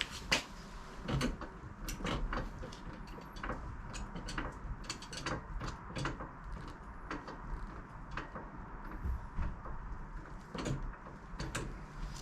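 Irregular clicks, taps and knocks of mechanical handling over a steady low hum.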